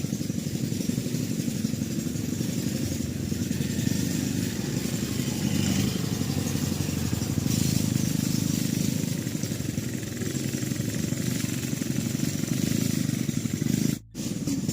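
A small engine running steadily, with a low rumble. The sound drops out briefly near the end.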